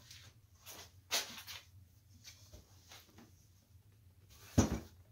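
Wooden knocks from a small upholstered rocking chair with new wooden rockers being handled on a workbench: one knock about a second in, then a louder thud near the end as the chair is set down upright.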